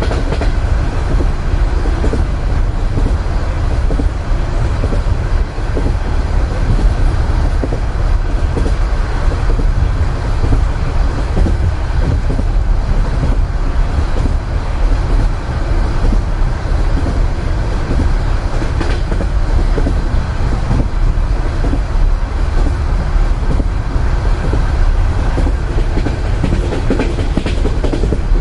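Russian Railways passenger carriage in motion, heard from inside a compartment: a steady low rumble with the clickety-clack of the wheels over the rail joints.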